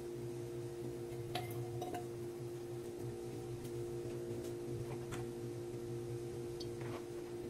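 A steady low hum made of several fixed tones, with a few faint, light ticks now and then.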